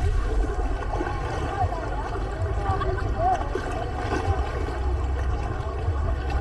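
Seaside ambience: distant voices of people wading and snorkeling in the shallows over gently splashing water, with a steady low rumble underneath.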